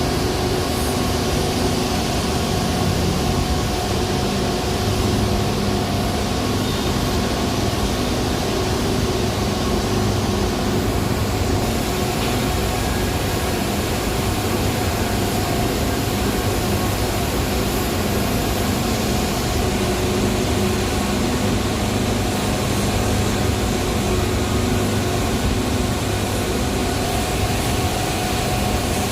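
Power plant machinery running steadily: a loud, even mechanical roar with several constant humming tones and no changes in pace.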